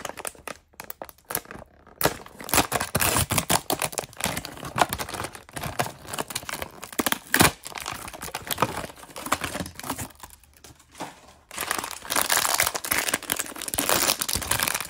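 Foil blind-bag packaging torn open and crinkled by hand: an outer foil pouch, then a smaller wrapped packet inside. Dense crinkling and tearing, with a short lull about ten seconds in, then loud crinkling near the end.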